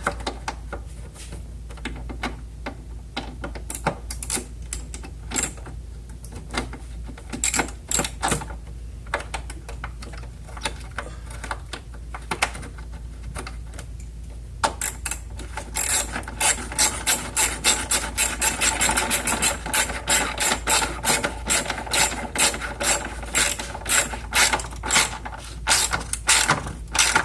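Ratchet wrench clicking as it drives in the headlight's retaining bolt. The clicks are scattered at first, then a rapid, steady ratcheting runs from about halfway.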